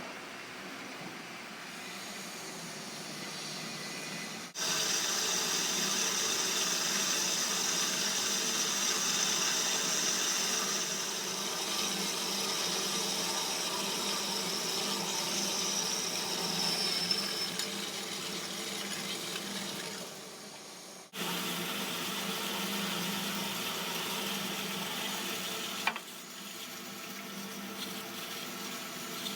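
Microcut SJ-13AT automatic bandsaw with shuttle vise running through its automatic cycle, a steady machine noise with a high whine from about 5 to 17 seconds in. The sound changes abruptly three times.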